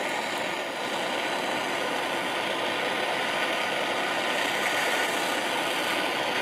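Handheld gas torch flame hissing steadily as it heats a brass fuel filler cap to burn out the old rubber gasket.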